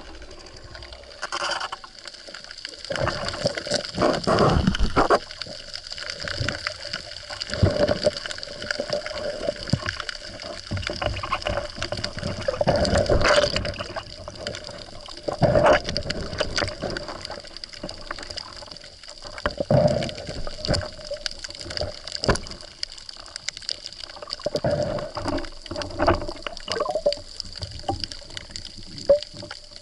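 Underwater water noise picked up through an action camera's waterproof housing: irregular swishing and gurgling with knocks and bumps from the diver's movement and handling of the speargun and speared fish, over a faint steady high whine.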